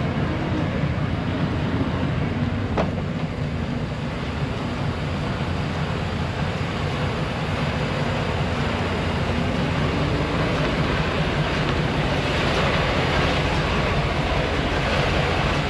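Steady low rumble of a semi truck's diesel engine idling, mixed with a rushing noise that grows a little louder in the last few seconds.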